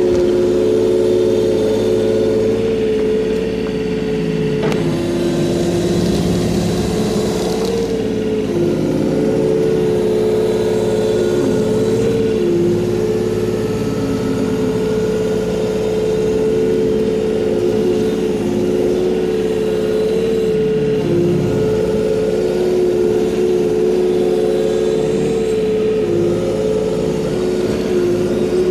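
Diesel engine of a compact earthmoving machine running steadily at working speed, its pitch dipping briefly a few times. A hiss joins in for a few seconds about five seconds in.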